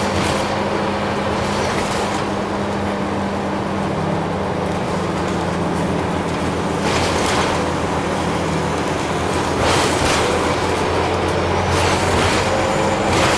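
Interior of a Scania OmniCity single-deck bus on the move: a steady diesel engine hum with road noise. Three sharp knocks or rattles from the body come in the second half.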